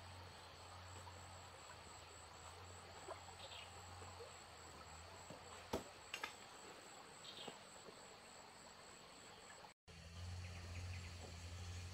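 Faint outdoor ambience: a steady high-pitched insect trill over a low hum, with a few light clicks, the sharpest about six seconds in. The trill stops about ten seconds in.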